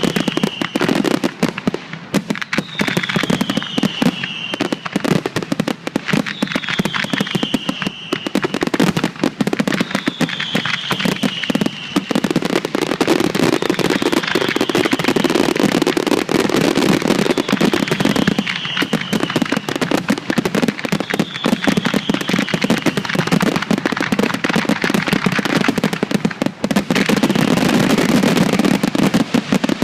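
Fireworks display: dense, continuous crackling and popping from many shells bursting, with a short falling whistle repeating every two to three seconds.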